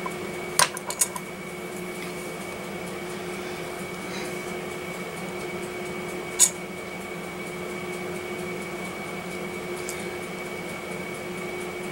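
Steady room hum with a thin high whine over it, broken by a few sharp clicks of small metal tools against the table: a quick cluster about half a second in and a single louder click about six and a half seconds in.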